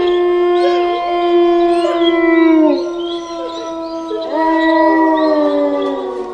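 A pack of wolves howling, several long howls overlapping at different pitches. Each howl is held steady and then slides down at its end, and fresh howls rise in a little past the middle.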